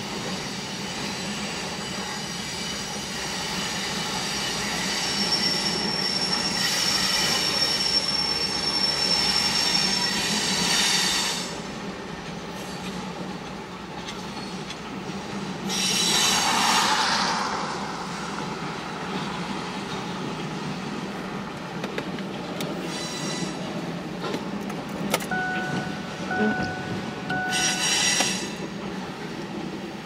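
Freight train cars rolling past: a steady rumble of steel wheels on rail, with high-pitched wheel squeal that swells for several seconds in the first third, including one held squealing tone, and returns in shorter screeches later.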